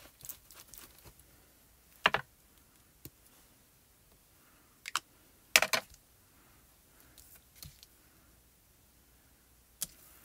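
Scattered clicks and knocks of a clear acrylic stamp block with a photopolymer stamp being handled and set down on the craft mat, with the card being moved. The two loudest knocks come about two seconds and five and a half seconds in.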